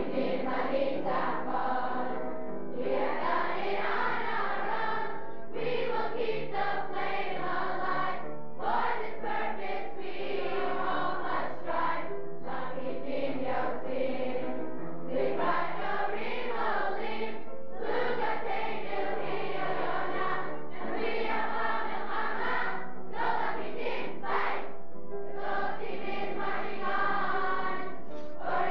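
A large group of campers singing a song together in chorus, in phrases of a few seconds with short breaks between them.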